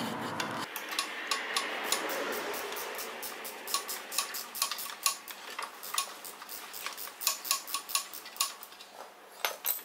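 Ratchet wrench clicking in quick, fairly regular runs of about three to four clicks a second as the muffler mounting bolts are undone.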